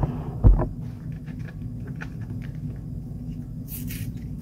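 Plastic-and-cardboard card blister pack being handled and opened by hand: a thump about half a second in, scattered small clicks, and a short rustle near the end, over a steady low hum.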